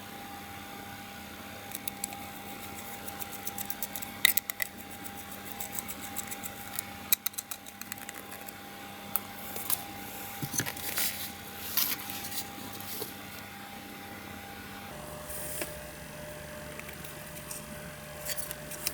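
Irregular small clicks and taps, clustered in the first two-thirds, over a faint steady hum.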